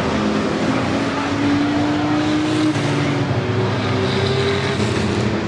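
Engines of several racing pickup trucks running at speed on a short oval track, a dense, steady mix of overlapping engine notes.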